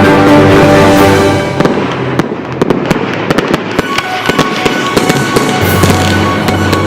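Fireworks going off in a rapid run of sharp crackling bangs, starting about a second and a half in, over loud music.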